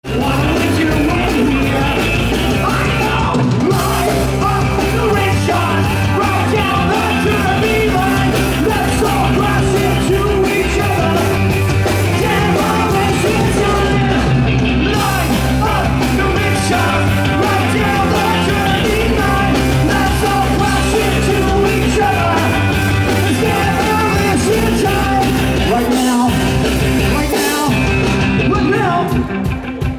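A live rock band plays loudly, with electric guitar, drums and a singer's voice, heard from within the audience. The band drops out for brief breaks about three and fourteen seconds in, and thins out near the end.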